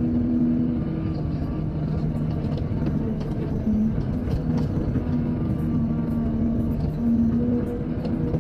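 Heavy earth-moving machinery engine running steadily, with a low drone that shifts in pitch now and then.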